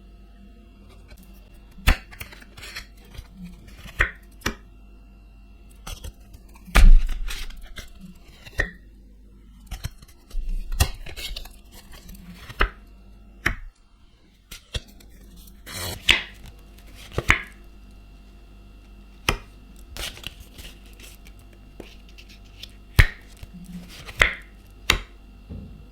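Irregular taps, clicks and short rustles of a boxed deck of playing cards and its packaging being handled and opened, with a louder knock about seven seconds in.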